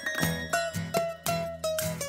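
Background music: a melody of short notes, each struck sharply and fading quickly, about three or four a second.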